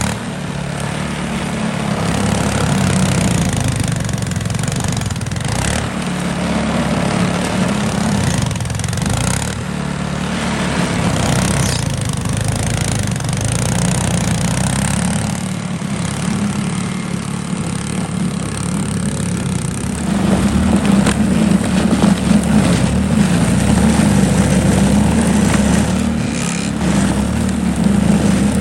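YARDMAX YB4628 single-stage snow thrower's small gasoline engine running steadily as it clears snow, growing louder about two-thirds of the way through.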